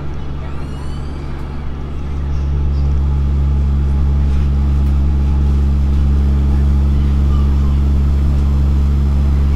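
Nippon Sharyo diesel multiple unit running, heard from inside the carriage: a steady low engine drone over running noise, which swells louder about two seconds in and then holds.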